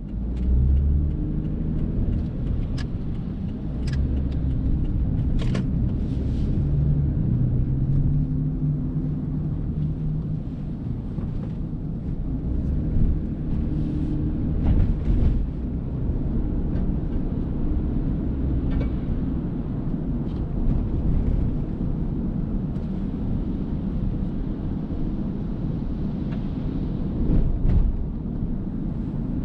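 Car driving: a steady low rumble of engine and road noise, its pitch shifting slightly with speed, with a few light clicks.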